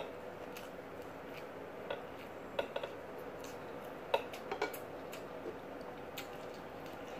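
Scattered light clicks and taps of dishes and utensils being handled while eating at a table, about six at uneven intervals, over a faint steady hum.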